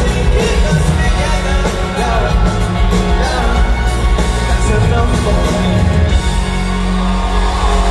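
Live pop-rock band playing at full volume through a large venue's PA: drums, guitars and a singer, heard from within the audience.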